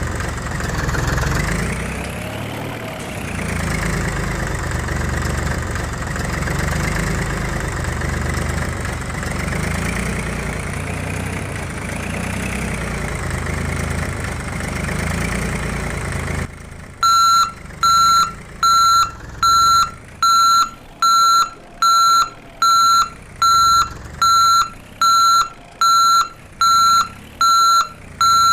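Steady engine running sound with slow swells in pitch, as of a machine idling and working. A little past halfway it cuts off suddenly and is replaced by a repeating electronic beep, a bit under once a second, like an excavator's reversing alarm.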